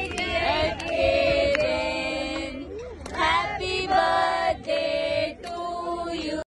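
Singing: a melody of long held notes, with a brief break about three seconds in.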